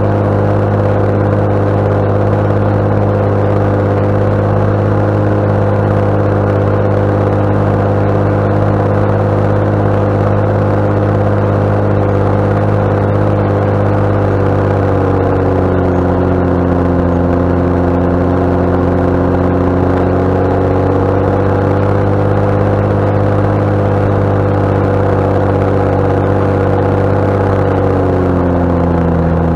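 JCB Fastrac 7270's straight-six Cummins diesel engine running under load while ploughing. A steady engine note that dips in pitch about halfway through, comes back up a few seconds later, and dips again near the end.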